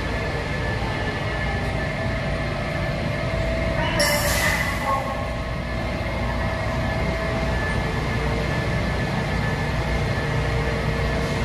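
Washington Metro railcars running in the underground station: a steady low rumble with a whine of several steady tones from the electric propulsion. A brief loud hiss comes about four seconds in.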